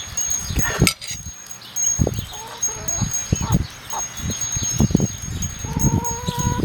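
Domestic fowl, helmeted guinea fowl and chickens, clucking and calling in short bursts, with one drawn-out call near the end. A thin, high, steady tone comes and goes behind them.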